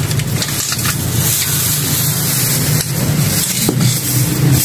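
Crinkling of a black plastic garbage bag being lifted and handled, over a steady rushing background noise.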